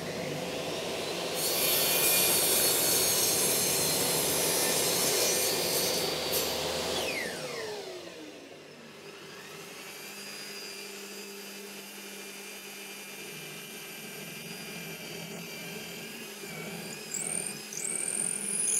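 Table saw cutting through a block of film-faced plywood with its blade tilted 20°: a loud hiss of the cut for about five seconds, then the motor winding down with falling pitch. After that a drill press runs more quietly and bores into the plywood block, getting louder near the end as the bit cuts.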